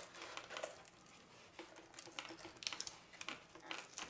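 Light handling noise: scattered small clicks and rustles as a LiPo battery pack and ESC wires are pushed into a foam model airplane's fuselage.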